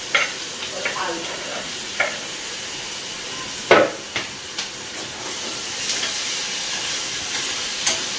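Chopped vegetables sizzling in hot ghee in a steel pot, with a steady hiss. A metal spoon scrapes and clinks against the pot and chopping board several times, with the loudest knock nearly four seconds in.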